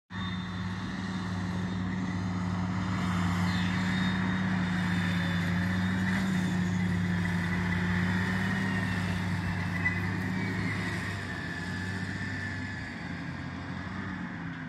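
John Deere rubber-tracked tractor running steadily as it tows a drill across the field: a low, even engine drone with a thin high whine over it. It grows fainter from about eleven seconds in as the tractor moves away.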